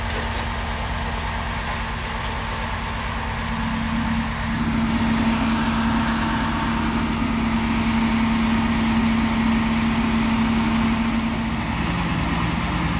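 Scrap truck's engine running to drive its hydraulic grab crane as the crane lifts a crushed car body into the bin. A steady engine hum grows louder about four seconds in and settles to a lower pitch near the end.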